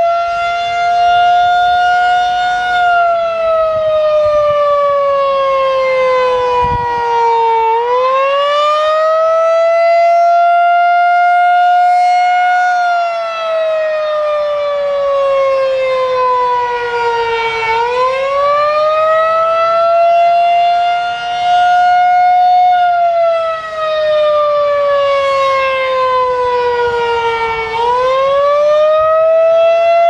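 Federal Signal 2001-SRN rotating outdoor warning siren sounding its attack signal: a loud wailing tone that rises quickly, holds briefly, then slides slowly down, repeating about every ten seconds, three times over.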